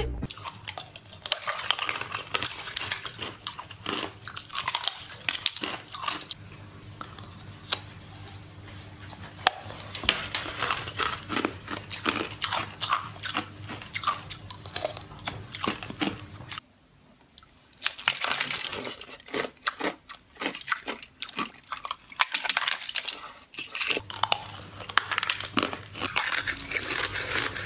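Close-miked ASMR of people biting into and crunching ice, a dense run of sharp cracks and crunches with chewing. There is a brief silence about two-thirds of the way through.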